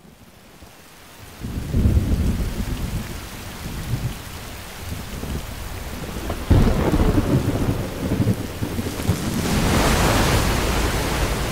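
Thunderstorm: heavy rain with rolling thunder, fading in at the start. A sharp thunderclap comes about six and a half seconds in, and the rain grows louder near the end.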